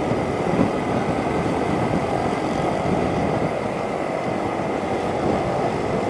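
Steady vehicle and road noise from moving through city traffic, with engines running nearby.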